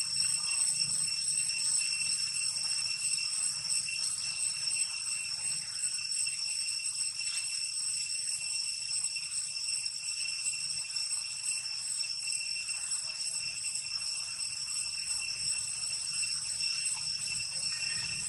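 Steady, high-pitched insect chorus droning without a break, with a faint low rumble underneath.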